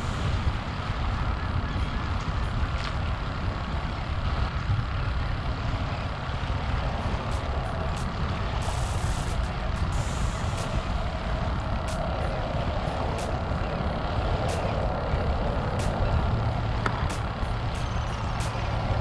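Wind buffeting the camera microphone with a steady low rumble, over small waves washing onto a shelly beach.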